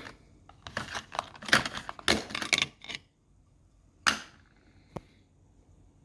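Clicks and knocks of small 3D-printed plastic cases being handled and opened on a desk, a cluster of quick clacks in the first few seconds, then a louder single knock about four seconds in and a small click a second later.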